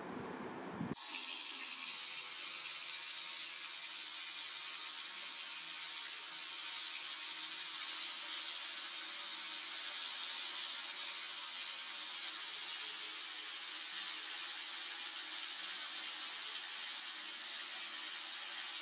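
Water running steadily from a tap, a continuous even hiss that starts about a second in.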